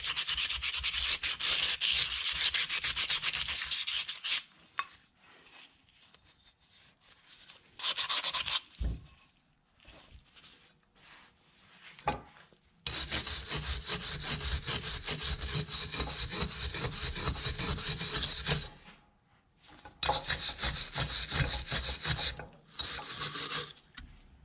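Hand wire brush scrubbing rust off the metal gear housing and frame of a vintage hand-crank ice cream maker, in rapid back-and-forth strokes. It comes in several spells with pauses between, and there is a single knock partway through.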